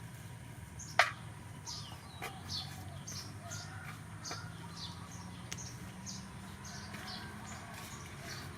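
A bird chirping over and over, short high notes that slide downward, about two a second, with one sharp click about a second in and a steady low hum underneath.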